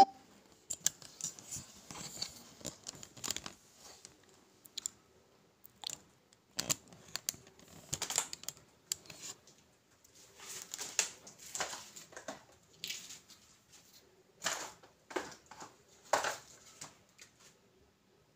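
Scattered rustling, clicks and soft knocks of handling, in short clusters with quiet gaps between.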